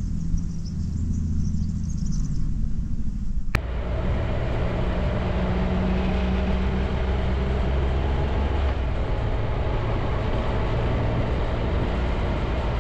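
Triumph Tiger 1200's three-cylinder engine idling steadily. After a sudden cut about three and a half seconds in, the motorcycle is riding along, its engine running evenly under wind and road noise.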